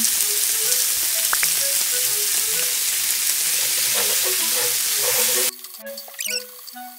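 Sliced beef sizzling in sesame oil on an electric hot plate as it is stirred with tongs, the sizzle cutting off suddenly about five and a half seconds in. Background music runs underneath and carries on alone after the cut.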